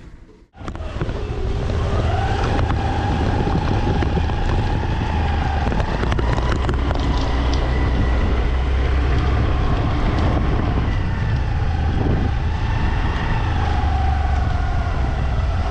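A 125cc Honda Grazia scooter being ridden, with heavy wind noise buffeting the microphone and an engine note that rises and falls with the throttle.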